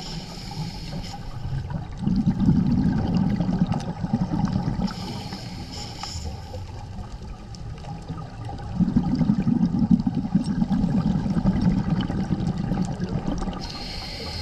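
Scuba diver breathing through a regulator underwater: two breaths, each a short hiss of inhalation followed by several seconds of bubbling, rumbling exhaust bubbles.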